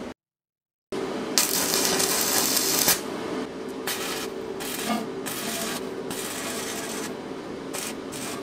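Stick arc welding on steel pipe: the arc crackles and sizzles in one longer run and then several short bursts with gaps between, over a steady hum. A brief silent gap comes just after the start.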